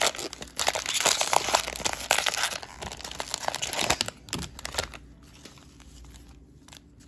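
Plastic wrapper of a Panini Prizm cello pack of trading cards being torn open and crinkling, a dense crackle for about four seconds that then drops to faint rustles.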